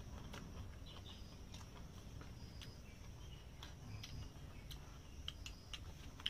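Quiet eating sounds: faint, irregular clicks of spoons against boxed lunches.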